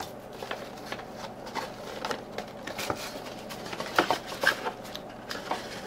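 Cardboard packaging being handled and opened by hand: irregular rustling, scraping and light clicks, with a couple of sharper knocks about four seconds in.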